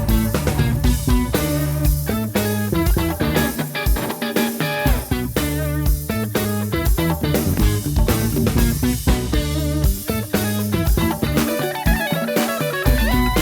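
Instrumental break of an ijexá song played by a band: steady rhythmic band music, no singing.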